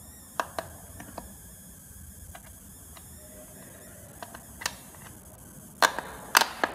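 Plastic clicks and knocks from a massage chair's white plastic roller gearbox housing being handled and fitted by hand: a few scattered clicks, then a louder cluster of sharp clicks near the end.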